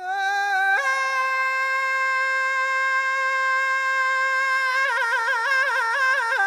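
Background music: a single melodic line that steps up to a long held note, then breaks into quick ornamented turns near the end.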